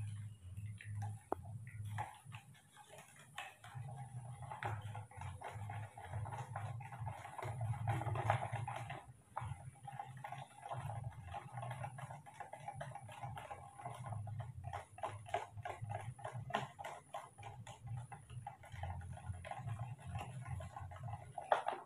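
Newborn baby monkey sucking on its own fingers: soft, irregular wet clicking and smacking that runs on in quick clusters.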